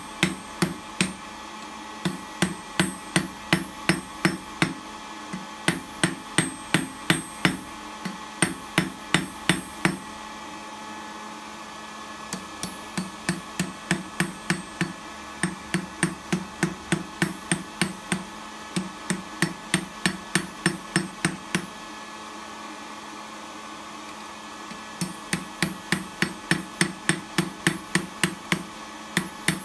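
Hand hammer striking a red-hot steel bar on a heavy steel block anvil, about three ringing blows a second in runs of several seconds, with two short pauses. The blows are forging the edges off a touchmark blank made from an annealed file.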